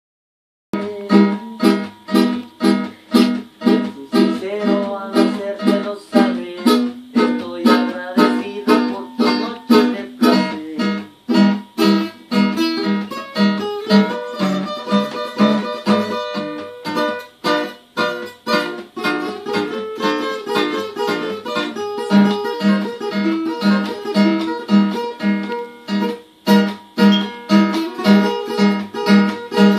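Two acoustic guitars playing together, strummed in a steady rhythm of about two strokes a second with a melody line over it, starting just under a second in.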